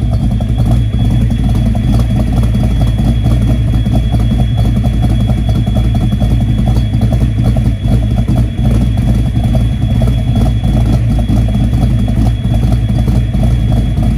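Fox-body Mustang's small-block Ford V8, fitted with a Trick Flow top-end kit and Stage 1 cam, idling steadily.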